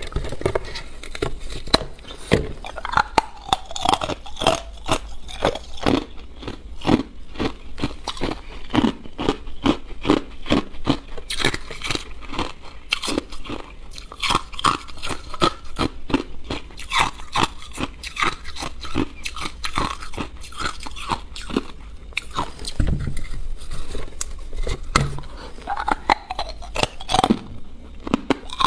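Ice being bitten and chewed: a continuous run of sharp crunches, several a second.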